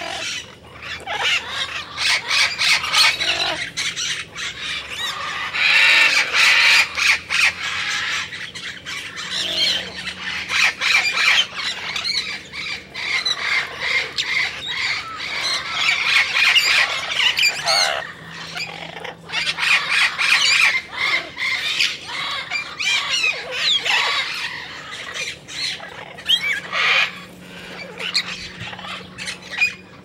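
Cockatoos squawking and chattering continuously, many short calls overlapping with no break, over a faint steady low hum.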